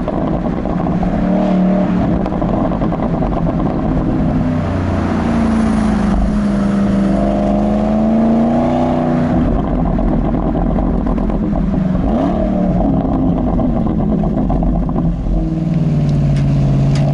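Porsche 971 Panamera GTS twin-turbo V8 exhaust, the engine note rising and falling several times with the throttle, with a crackling rattle of pops from a pop-and-crackle exhaust tune.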